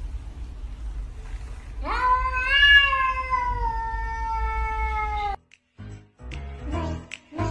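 A domestic cat's long drawn-out meow, rising at the start, held for about three and a half seconds and slowly falling before it cuts off abruptly. After a short gap, music with a steady beat begins near the end.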